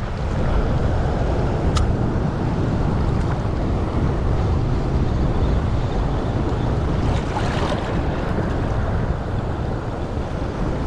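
Wind rumbling steadily on the microphone over rough sea waves washing, with one light click about two seconds in.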